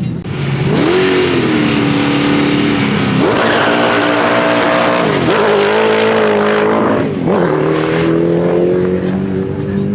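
V8 engine of a mid-engined VW Golf drag car at full throttle down the strip. Its note breaks sharply and climbs again three times, about 3, 5 and 7 seconds in.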